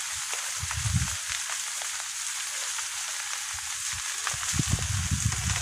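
Burning trees and undergrowth crackling: many small sharp cracks over a steady hiss. A low rumble comes and goes, mostly near the end.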